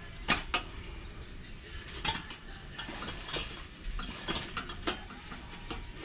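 Metal tire irons clicking and scraping against a dirt bike's wheel rim as the tire bead is levered off, with several sharp metallic clicks, the loudest shortly after the start.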